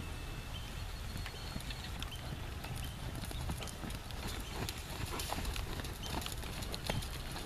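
Horse trotting on a sand arena: a steady, uneven run of soft hoofbeats over a low, steady rumble.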